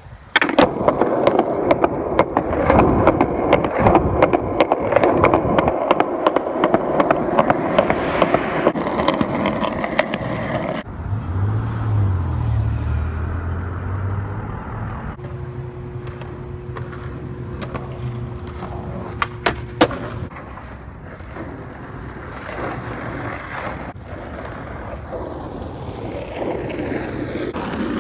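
Skateboard wheels rolling over rough pavement: a loud, steady gritty roll with frequent sharp clicks. About eleven seconds in it drops away to a low wavering hum and a steady tone, and the rolling noise builds again near the end.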